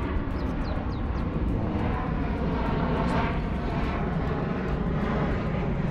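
Steady wind rumble on the microphone while a spinning reel is wound in against a hooked fish.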